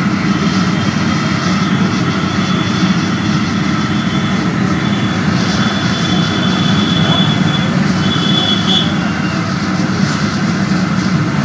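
Moong dal deep-frying in a large iron kadhai of hot oil, a steady loud sizzle and bubbling over the low rumble of the fire burning in the clay stove beneath.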